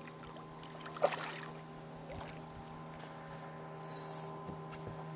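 A hooked bass splashing and thrashing at the water's surface as it is played in on a topwater lure, with one sharp splash about a second in and a short hiss near four seconds. A steady low hum runs underneath.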